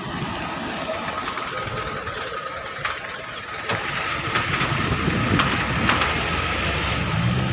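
Passenger train coaches rolling past, a steady rumble of wheels on rail with a thin steady whine, growing louder about halfway through as several sharp clacks of wheels over rail joints come in.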